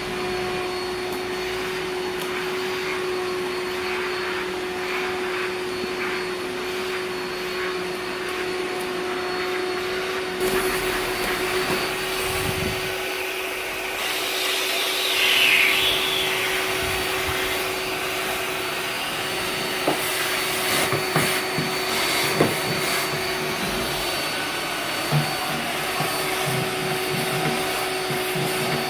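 Bosch Athlet Zoo'o ProAnimal cordless stick vacuum cleaner running with a steady hum and one held tone, with scattered clicks and rattles in the second half; it cuts off suddenly at the end.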